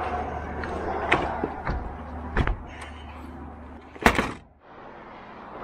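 Aluminium diamond-plate top compartment lids on a fire engine being handled and shut: a few knocks and clicks, then a loud metallic slam about four seconds in.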